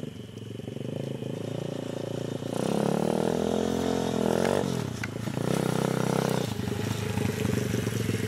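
Small pit bike's engine running while ridden, revving up and easing off about a third of the way in, revving again briefly, then settling to a lower steady note near the end.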